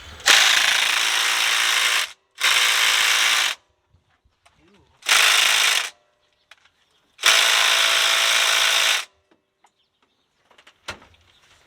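A handheld power tool run in four bursts, the first and last nearly two seconds long and the middle two shorter, with short pauses between them.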